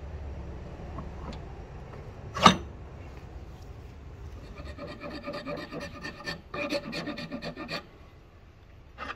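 Hand rasp filing wood, with a fast run of rhythmic scraping strokes in the second half. A single sharp knock comes about two and a half seconds in.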